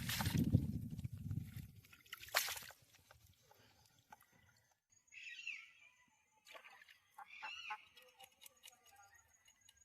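Water sloshing and splashing for the first second or so, as fish are washed by hand, with a sharp knock a little later. A few short bird calls follow in the second half.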